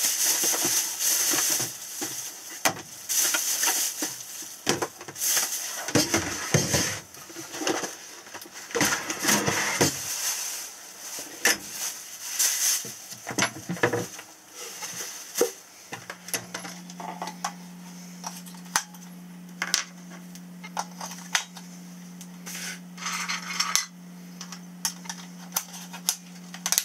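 Groceries unpacked from a plastic shopping bag and stowed in wooden cabinets: the bag rustling, with clinks and knocks of cans and containers. About halfway through the rustling thins to scattered light clicks of small plastic items, over a steady low hum.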